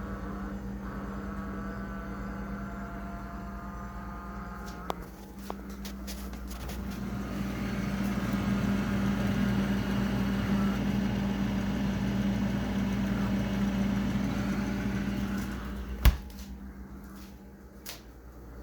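Frigidaire refrigerator compressor running with a steady hum that swells into a louder, rougher noise for several seconds, then a sharp click, after which it goes quieter. The owner takes this noise for a refrigerant head-pressure sound pointing to a low refrigerant charge.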